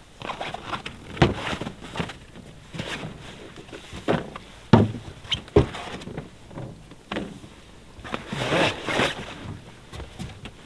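Knocks, clunks and rattles of hardware as a camper trailer's rooftop tent is unlocked and opened, with the loudest clunk about halfway through and a longer rustling scrape near the end.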